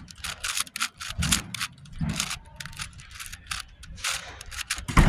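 GAN 460 M 4x4 speedcube being turned by hand, a fast, irregular run of plastic clicks as its layers snap round.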